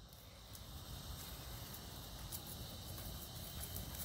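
Faint outdoor ambience: insects chirring steadily over a low rumble, with a walking horse's soft hoof falls on grass getting gradually louder as it comes closer.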